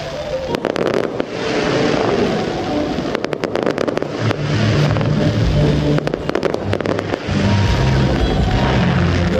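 Fireworks going off in clusters of sharp, rapid crackling reports, three bursts of them. Music plays underneath and grows louder about halfway through.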